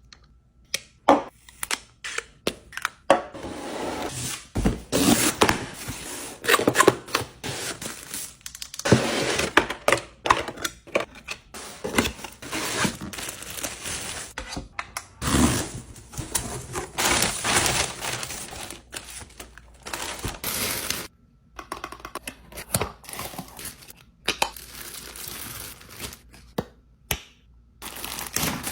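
Packaging being handled close up, with crinkling and tearing and scattered light knocks and taps as items are set down.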